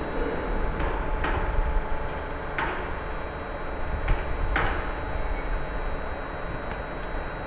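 Laboratory vacuum planetary mixer running with a steady mechanical hum and low rumble, with five sharp metallic clinks at uneven intervals in the first five seconds.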